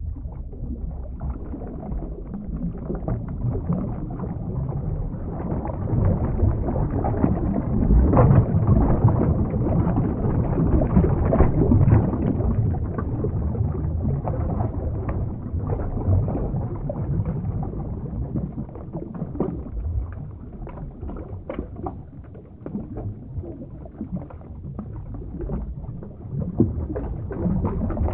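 Underwater ambience sound effect: a muffled, steady low rush of water with scattered small bubbling pops through it.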